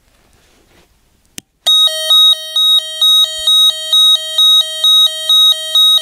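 Homemade mini electronic siren, a spy-gear alert speaker and circuit board run on two AAA batteries, sounding its fast hi-lo setting: a loud electronic tone switching quickly between a low and a high pitch, about three times a second. It starts just after a click about a second and a half in.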